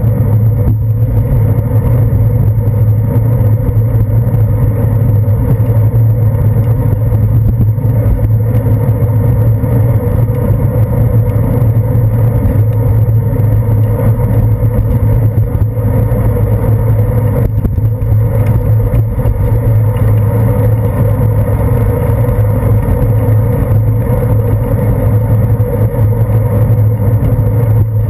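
Steady rumble of wind and road vibration picked up by a handlebar-mounted GoPro Hero 2 on a moving bicycle, with a constant low hum under it.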